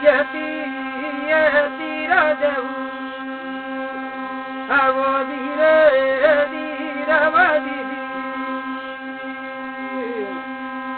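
Thali, a brass plate sounded by rubbing a stick fixed upright on it, giving a steady humming drone. A voice sings the story over it in short chanted phrases, with pauses between them.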